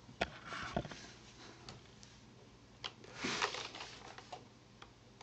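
A few faint, scattered clicks and taps from a computer mouse and keyboard.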